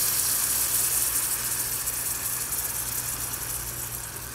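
Chicken stock sizzling as it is poured into a hot cast iron pan of seared chicken breasts. The sizzle fades gradually, over a steady low hum.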